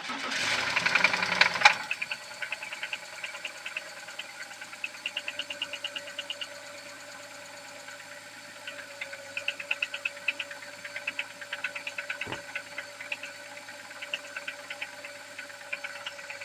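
BMW X5 E53's M54 straight-six petrol engine running from cold, louder for the first two seconds and then settling, with runs of rapid knocking that come and go. The knock is connecting-rod knock on a cold engine. A single dull thump comes near the end.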